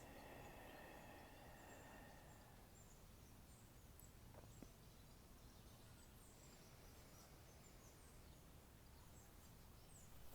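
Near silence: faint outdoor ambience with scattered, distant bird chirps, and a faint steady hum that fades out about two and a half seconds in.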